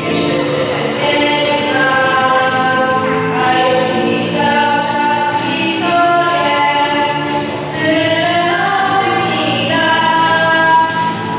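Children's choir singing, holding long notes that change pitch every second or so.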